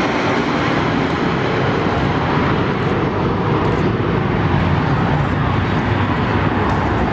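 Avro Vulcan's four Rolls-Royce Olympus turbojets during a display pass: a loud, steady jet rush, its higher hiss thinning about halfway through while the low rumble grows stronger.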